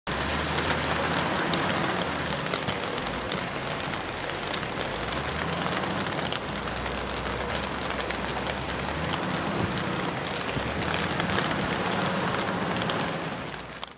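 Heavy rain falling, a dense patter of drops, with a low hum that comes and goes underneath. It fades out just before the end.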